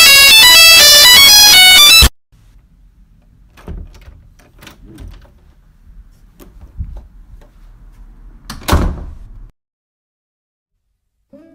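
A makeshift doorbell sound: a very loud, harsh run of stepping electronic notes that cuts off abruptly about two seconds in. Then faint background noise follows with a few scattered knocks and clicks, and one louder sharp knock near the end.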